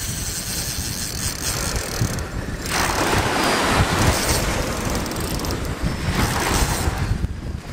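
Wind buffeting the microphone over surf on a beach, a rumbling rush that swells louder about three seconds in and eases near the end.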